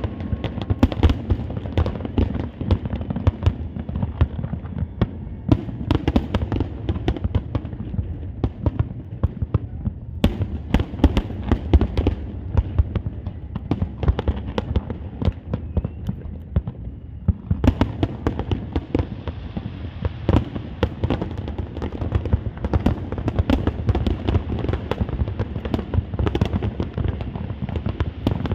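Large fireworks display: a dense, continuous barrage of shell bursts and crackling bangs over a low rumble, thinning briefly about two-thirds of the way through.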